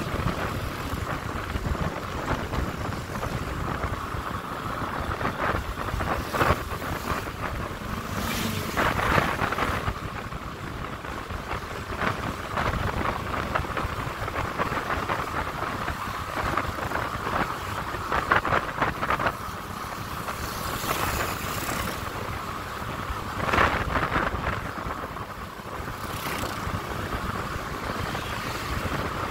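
A motorcycle running steadily at cruising speed, with wind rushing over the microphone that swells louder in several short gusts.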